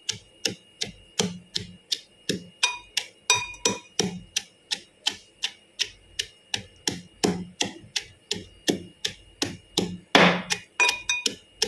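Pestle pounding in a mortar, with steady even blows about three a second. It is crushing cut onion into a paste of pepper, cumin, green chilli and garlic for rasam.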